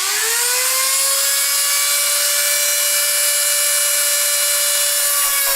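High-speed rotary tool motor spinning up quickly to a steady high-pitched whine and holding at full speed; the pitch begins to drop right at the end as it winds down.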